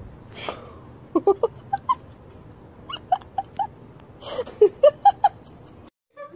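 Kittens mewing: short, quick calls in three clusters, a few per second.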